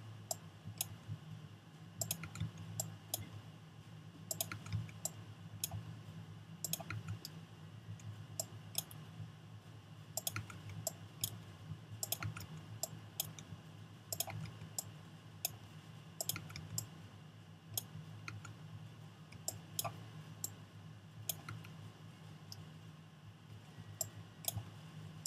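Irregular clicking of a computer mouse and keyboard, about one or two clicks a second, over a low steady hum.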